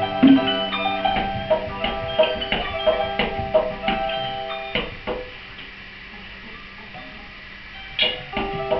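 Live ensemble music of struck tuned percussion, each note ringing on after it is hit. About five seconds in it thins to a few soft notes, then the playing picks up again near the end.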